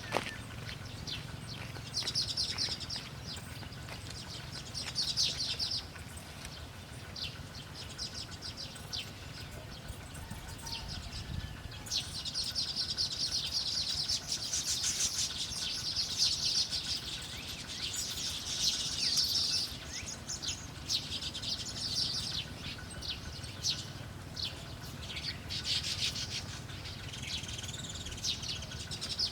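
Small birds chirping in rapid, chattering phrases a second or two long, repeated over and over and busiest from about twelve seconds in.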